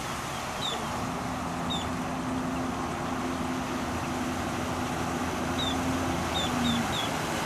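Stage 2 tuned Sea-Doo RXP-X jet ski engine running steadily at low speed, with a short rise in pitch near the end. Birds chirp several times.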